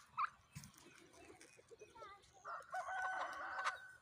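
Domestic turkeys calling: a short call at the start, then a loud, long call lasting a little over a second from about two and a half seconds in.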